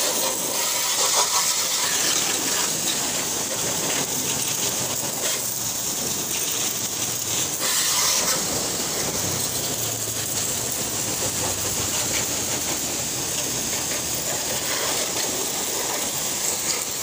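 Coin-operated pressure washer spraying a high-pressure jet of water onto a motor scooter and a concrete floor: a steady hiss.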